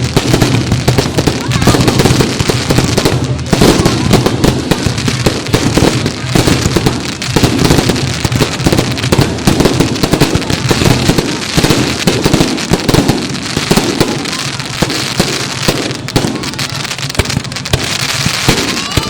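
Fireworks display going off without pause: a dense, irregular run of bangs and crackles, with music and voices underneath.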